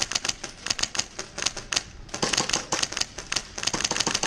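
Airsoft guns firing in rapid strings of sharp clicks, several overlapping, with a brief lull about two seconds in.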